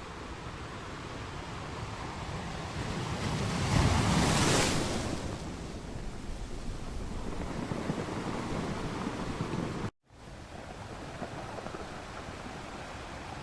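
Ocean surf: a wave swells, breaks loudest about four seconds in and washes back, over a steady rush of the sea. The sound cuts out for a moment near the end before the surf noise returns.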